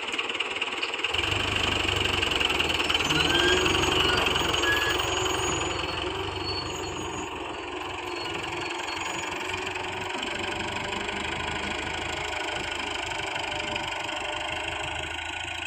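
Farm tractor's diesel engine running steadily as the tractor drives across the field with its planter raised. It is loudest about three to four seconds in, then a little quieter.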